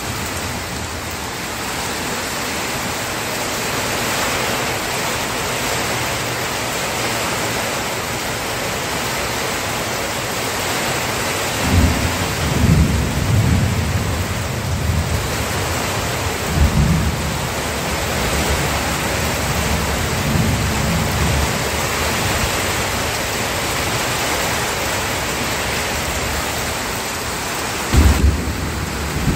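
Steady heavy rain with low thunder rumbling several times, first about twelve seconds in and again near the end.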